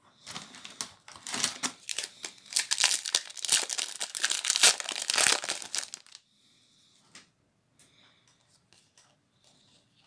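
Foil wrapper of a Magic: The Gathering booster pack being torn open and crinkled, a dense crackle for about six seconds. After it stops there are only faint clicks of cards being handled.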